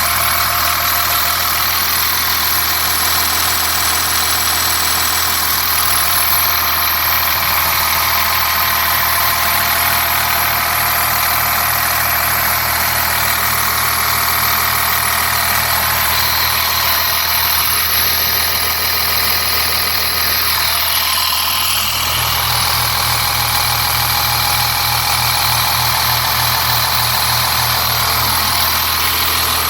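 2001 Blue Bird All American school bus engine idling steadily.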